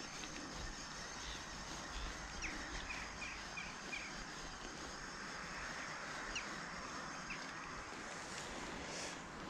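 Steady soft wash of calm sea water, with a quick run of about six short high bird chirps between two and four seconds in and a few fainter ones later.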